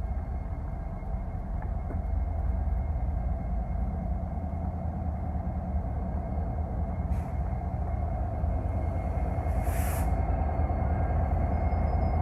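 Ferromex freight train's diesel locomotives running with a steady low rumble. There is a short hiss about ten seconds in.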